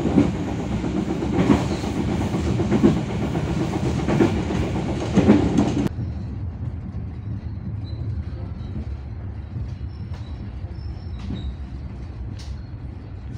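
Local passenger train running on the rails, heard from inside the carriage: a steady rumble with a sharp wheel click over the rail joints about every second and a half. About six seconds in the sound drops abruptly to a quieter, gentler run with fainter clicks.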